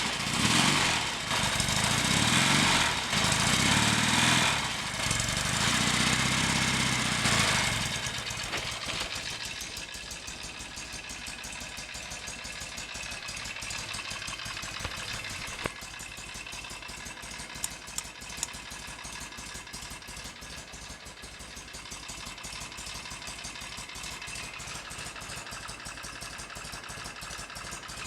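Norton Commando 850's air-cooled parallel-twin engine, started cold, revved in three throttle blips, then settling about eight seconds in to a steady idle. It runs with no nasty noises, which the owner takes as a sign that the freshly slackened primary chain is fine.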